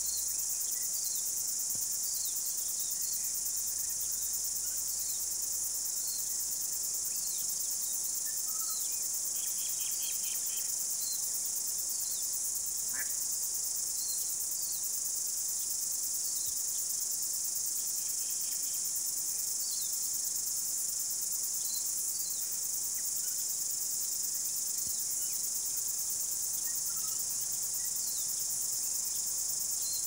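Steady high-pitched chorus of insects, with small short chirps scattered through it and a couple of brief quick trills.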